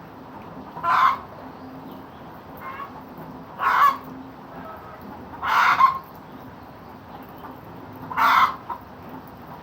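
Chicken clucking: four short loud calls spaced two to three seconds apart, with a fainter one between the first two, over a faint steady hiss.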